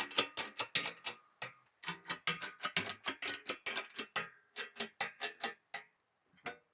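A rapid run of sharp clicks, about four to five a second, in runs broken by two short pauses.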